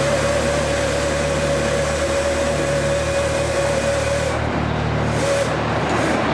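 Steady machine drone with a whining tone from an overhead hoist lowering a concrete burial vault on chains. The whine stops about four seconds in and comes back once briefly a second later.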